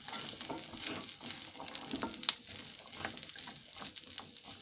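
A spatula stirring boiled chickpeas in a nonstick kadai: soft irregular scrapes and clicks of the chickpeas turning, over a faint sizzle from the hot pan.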